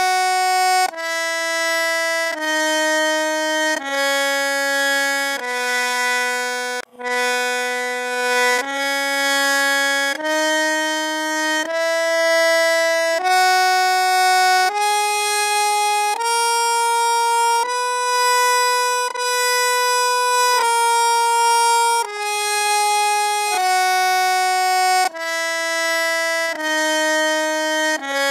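Harmonium playing the B major scale one sustained note at a time, about a second and a half per note. It steps down to the low B, breaks off for a moment, climbs the octave back to the upper B, holds it and starts down again.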